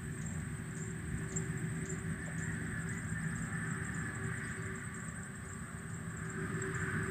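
Steady outdoor background noise: a low rumble with a faint, even high-pitched buzz over it.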